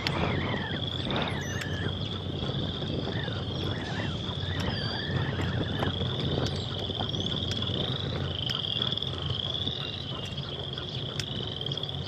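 Trilling calls from wild animals, a high pulsing trill about a second long repeating one after another, with a few short chirps in the first couple of seconds. Low wind rumble on the microphone underneath.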